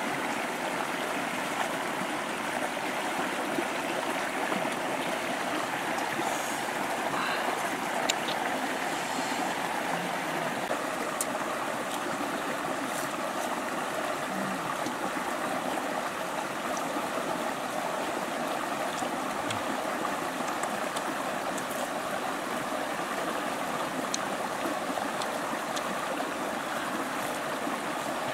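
A small rocky stream rushing steadily over stones, with a few faint clicks above the flow.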